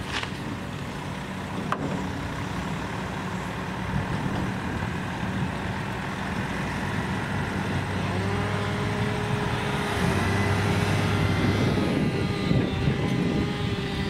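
Logging truck's diesel engine running as the truck manoeuvres, growing a little louder through the second half, with a whine joining in about eight seconds in.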